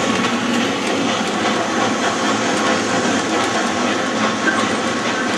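Recording of a real steam train running: a steady rushing noise with the clatter of wheels on rail.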